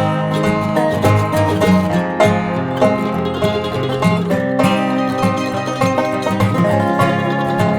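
Background bluegrass music led by a rapidly picked banjo, with guitar.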